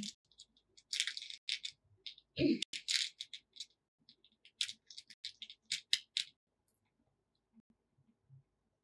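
Small beads rattling and clicking as fingers sift through a compartmented plastic bead box, in short runs over the first six seconds, with one dull knock about two and a half seconds in.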